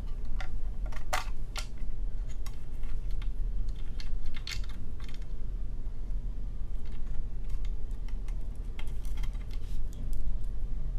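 Scattered light clicks and taps as the scaler handpiece cable and its connector are pulled out through the dental scaler unit's housing, over a steady low hum.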